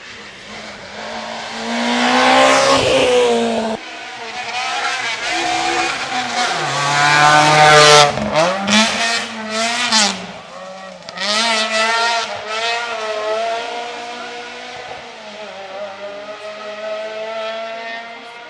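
Rally car engines passing at full throttle. A first pass falls in pitch and is cut off short about four seconds in. Then a car approaches, revving hard through quick upshifts with sharp cracks between the gears, and is loudest about eight seconds in before its engine fades away.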